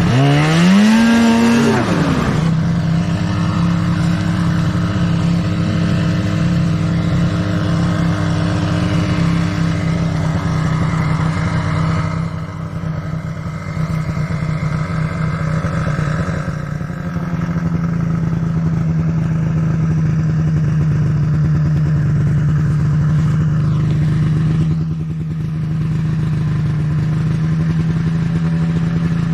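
Snowmobile engine revving up sharply at the start, then running at a steady high pitch under way, easing off briefly twice.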